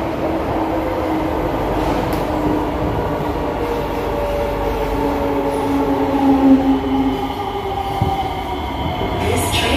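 SMRT C151A metro train running, heard from inside the carriage: a steady rumble of wheels on track with several humming motor tones that drift slightly in pitch. Just before the end, some higher-pitched sounds come in.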